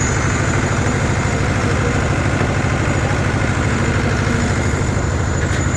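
Excavator's diesel engine running steadily at a constant speed with a low, rapid pulse, like an idle.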